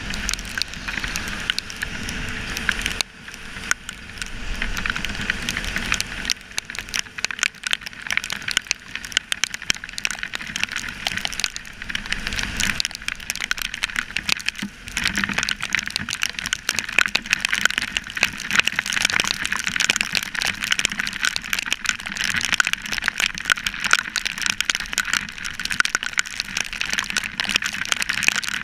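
Heavy rain striking a GoPro Hero3 in its waterproof housing on a moving motorcycle: a dense, steady crackle of drop hits, with a low rumble from the ride in the first few seconds.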